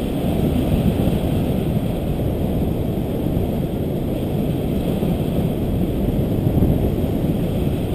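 Steady rush of wind over the camera microphone from the airflow of a paraglider in flight, an even low rumbling noise with no breaks.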